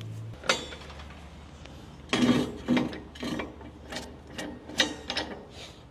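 A run of irregular metallic clicks and knocks from hand tools working at a car's wheel, over a faint low hum.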